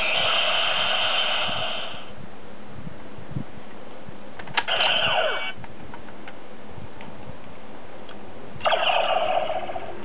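Electronic sound effects from a DX Kamen Rider Decade toy transformation belt (Decadriver) played through its small built-in speaker. A sustained electronic tone stops about two seconds in. A click and a short effect with a falling tone come about halfway through, and another burst of electronic sound comes near the end.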